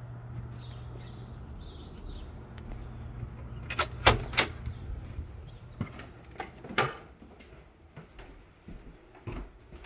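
A back door being opened and shut: two loud clacks about four seconds in, then scattered lighter knocks and clicks, over a steady low hum.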